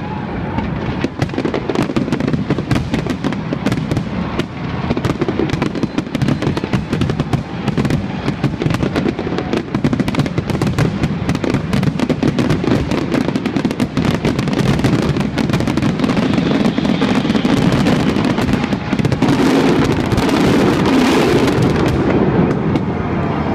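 The closing barrage of a large fireworks display: a dense, rapid stream of shell bursts and crackling over a continuous rumble. It builds to its thickest and loudest about three-quarters of the way through, then thins out near the end.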